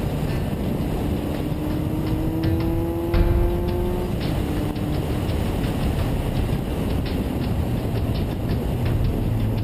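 Suzuki Bandit motorcycle's inline-four engine running at road speed under heavy wind noise on the camera microphone. Its pitch rises steadily for about three seconds, then drops about four seconds in and sinks under the wind.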